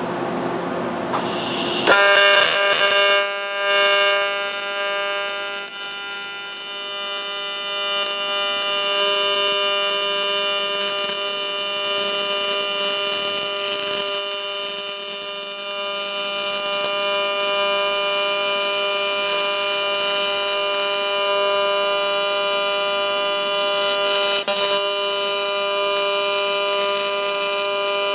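Welding arc on cast aluminum buzzing steadily, struck about two seconds in after a short stretch of fan-like hiss.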